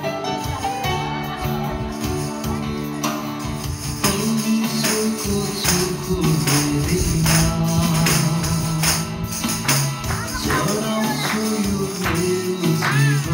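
A group of timbrels (ribboned tambourines) struck and jingled together in a steady beat, one stroke about every half second, coming in strongly about four seconds in, over music with singing.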